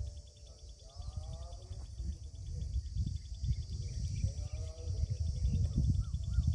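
Insects chirping in a fast, even pulse with a steady high hiss, while birds give short gliding calls. Irregular low rumbling grows louder toward the end.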